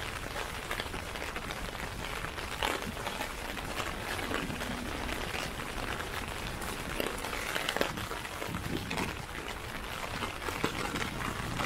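Rain falling on a clear plastic umbrella overhead and on the street, a dense, steady patter of many small drop ticks.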